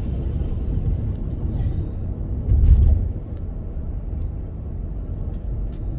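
Road and engine rumble inside a moving car's cabin, steady and low, swelling louder for about half a second around two and a half seconds in.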